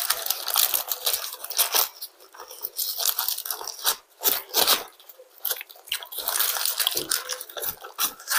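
A paper food wrapper being crinkled and torn open by hand, in rapid crackling rustles with a brief lull about four seconds in.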